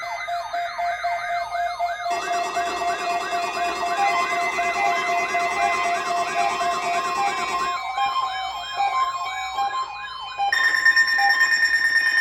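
Weather radio receivers sounding their siren-style alert for a NOAA Weather Radio weekly test: several layered tones sweeping quickly up and down, two to three sweeps a second, with a steady alarm tone joining about two seconds in. Near the end the sweeps give way to a louder steady high beep tone.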